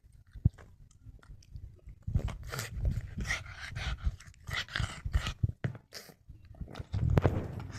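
A pug chewing on a bone: irregular crunching and clicking bites mixed with noisy breathing. It is loud, with the loudest burst about seven seconds in.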